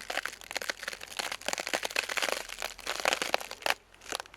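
Dense, irregular crackling and rustling, like things being handled close to the microphone. It stops about three-quarters of the way through, and a couple of last crackles follow.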